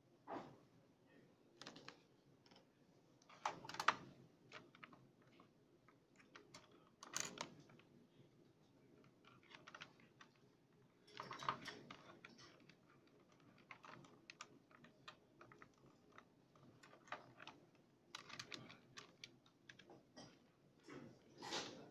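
Faint, irregular plastic clicking in short clusters: keys and buttons being pressed and a small plastic remote being handled.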